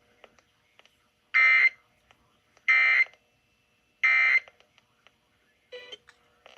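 Emergency Alert System end-of-message data tones: three short, harsh buzzing bursts of digital code, each about a third of a second long and spaced about 1.3 seconds apart, marking the end of the alert.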